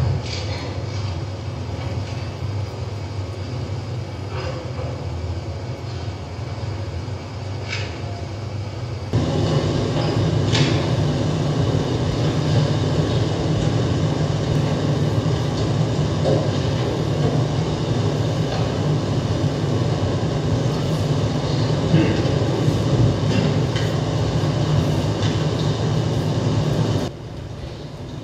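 A dense, rumbling wash of noise with indistinct voices in it. It gets suddenly louder about nine seconds in and drops off sharply near the end.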